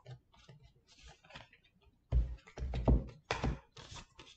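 Tarot cards and hands being handled on a table: faint clicks and rustles, then a cluster of dull thumps and knocks from about two seconds in.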